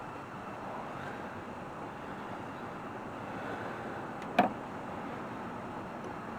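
Steady hiss of a running shop heater, with one sharp click about four seconds in.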